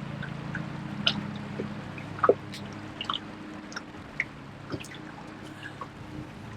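Water dripping and trickling, with scattered small ticks and splashes, over a low steady hum that weakens about two and a half seconds in.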